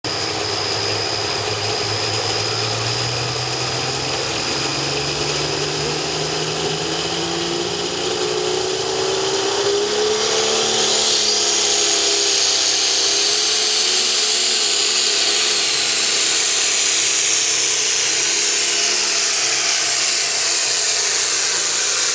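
Engine of a limited pro stock pulling tractor running hard under load, its pitch climbing over the first ten seconds. About ten seconds in it gets louder, with a high whine that slowly falls in pitch.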